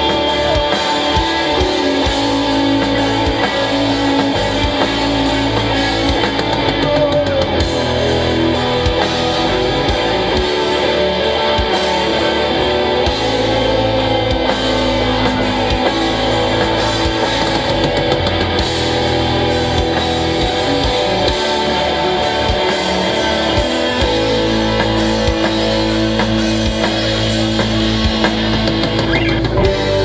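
Live rock band playing loud, with electric guitars, bass and a drum kit.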